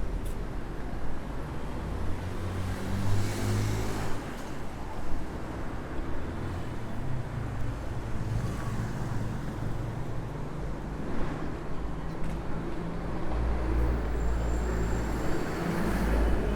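Heavy city street traffic: car and larger vehicle engines running in a continuous low rumble, with vehicles swelling past now and then and the loudest passing near the end.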